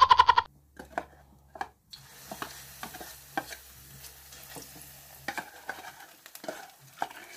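Batter poured from a metal cup into a wok of hot oil and sizzling, the sizzle starting about two seconds in. A spoon scrapes and taps against the cup as the batter is pushed out.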